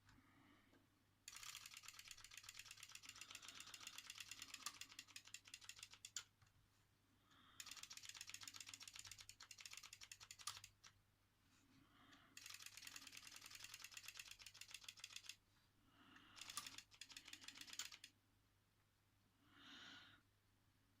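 The gear train and flip-card mechanism of a Sony flip clock being turned by hand, making rapid runs of small mechanical clicks. There are four spells of clicking, each a few seconds long, with short pauses between.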